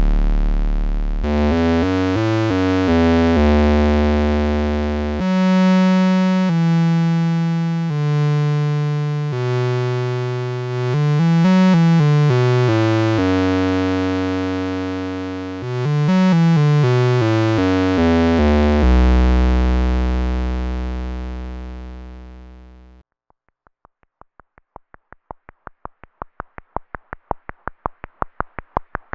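Moog Spectravox analog synthesizer, a single oscillator through its filter, playing low sustained notes with several sliding changes of pitch, each note fading away. About 23 seconds in the notes stop and give way to a fast run of clicks, about five a second, growing louder.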